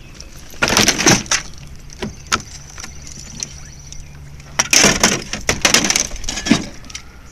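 Broken glass and plastic from a smashed TV clattering and crunching in several short bursts as the debris is handled.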